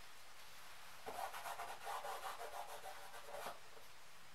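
Faint handling sounds at a chalkboard: light, uneven scratching and rubbing between about one and three and a half seconds in.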